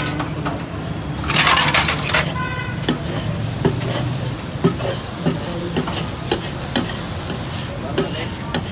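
Metal spatula scraping and clinking on a large flat tawa griddle while liver pieces sizzle in oil. There is a loud burst of sizzling a little over a second in, then sharp clinks of the spatula about twice a second.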